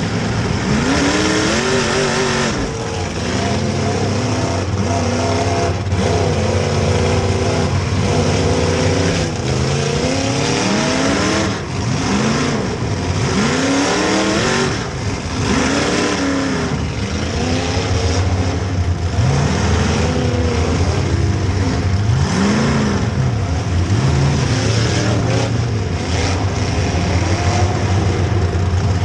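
Demolition derby car engines revving hard over and over, each rev rising and falling in pitch, over a steady low engine drone.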